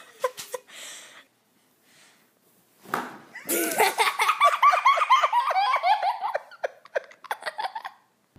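A person laughing hard, a long run of quick repeated "ha-ha" sounds starting about three and a half seconds in and lasting some four seconds, after a few short clicks near the start.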